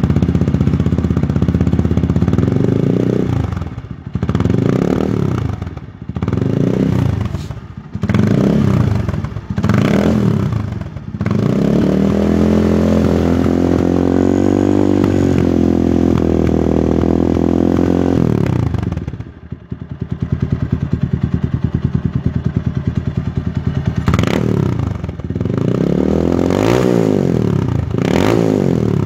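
TVS Apache RTR 180's single-cylinder engine heard through an Akrapovic carbon-fibre slip-on silencer, revved in a string of quick throttle blips, then held up at higher revs for about seven seconds. It drops back to idle, and a few more blips follow near the end.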